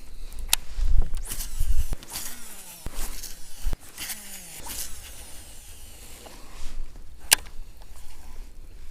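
Handling noise on a fishing kayak: low thumps and scattered knocks and clicks of gear against the hull, with one sharp click about seven seconds in.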